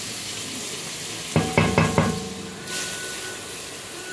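Butter sizzling as it melts in an aluminium pot, stirred with a wooden spoon. About a second and a half in, four quick knocks against the pot set its metal ringing briefly.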